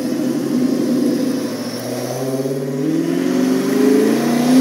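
Fox-body Ford Mustang driving off and accelerating. The engine note is steady at first, then rises in pitch over the last two seconds and is loudest near the end.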